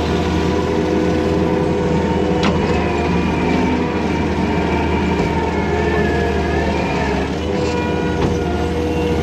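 Diesel engine of a loader working dirt, running steadily with a fainter whine above it that drifts up and down in pitch, and one sharp click about two and a half seconds in.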